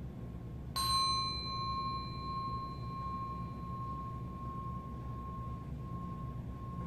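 A small metal bell struck once about a second in, then ringing on with one clear, steady tone that fades only slowly.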